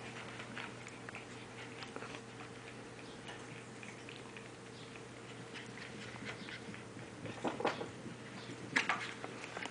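Yorkshire terriers play-wrestling and running on carpet: faint scuffling and patter of paws, with a few short, louder sounds near the end.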